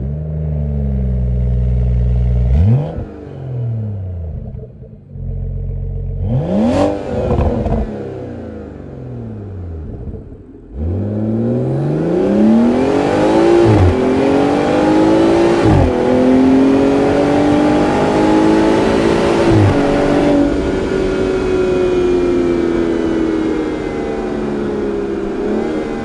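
BMW 540i's turbocharged 3.0-litre straight-six through its stock exhaust: it starts and idles, is blipped twice, then pulls hard through the gears, pitch climbing with three upshift drops before settling into a steady cruise.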